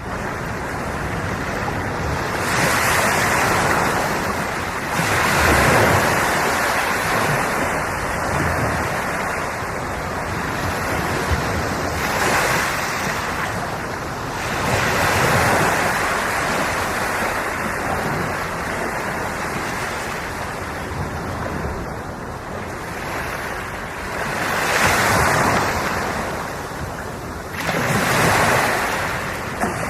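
Sea waves breaking and washing up on the shore, the surf swelling louder every few seconds and then easing back.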